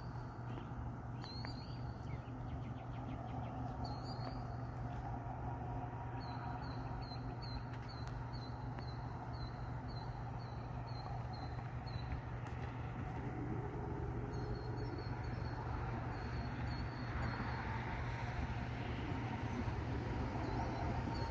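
Rural outdoor ambience: insects droning steadily at a high pitch, with a bird calling in short repeated chirps, a run of about two a second in the middle, over a low steady hum.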